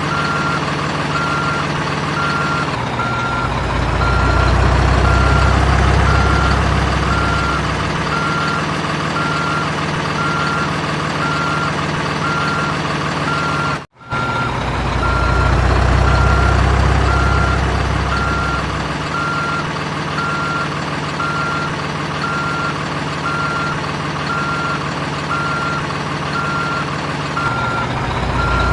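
Simulated heavy-machine diesel engine and reversing beeper from an RC excavator's sound module: a steady engine note with regular beeping, the low rumble swelling twice as if revving under load. The sound cuts out briefly about halfway through.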